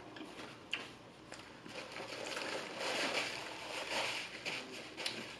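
Close-miked wet chewing and mouth sounds of a person eating, quieter for the first second or so and then louder, with a few small clicks.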